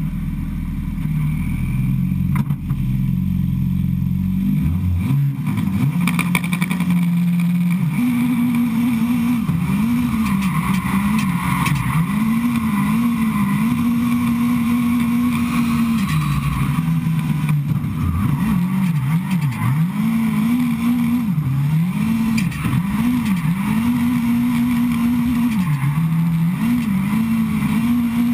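Engine of a 650-horsepower 2011 Ford Fiesta gymkhana car, heard from a hood-mounted camera. It runs low and steady for the first few seconds. From about eight seconds in it is held at high revs, dropping and climbing back again a dozen or so times as the car is driven hard.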